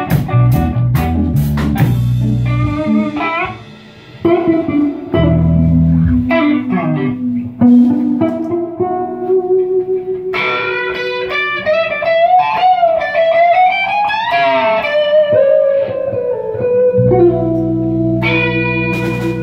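Rock band jamming on electric guitars and bass guitar, with drum-kit hits in the first couple of seconds. A lead electric guitar line with bending, wavering notes carries the middle, and heavy low bass notes return near the end.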